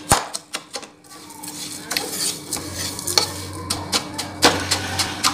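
A spatula stirring and scraping melting sugar in a nonstick kadhai, with repeated clicks and knocks against the pan as it breaks up lumps in the forming sugar syrup.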